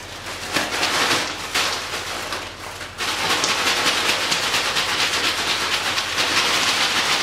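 Ice cubes and rock salt in a zip-lock bag wrapped in a towel, shaken hard and fast to churn the cream in an inner bag into ice cream. The first few seconds are lighter rustling as the bag is handled in the towel, then a dense, fast rattling starts abruptly about three seconds in and keeps going.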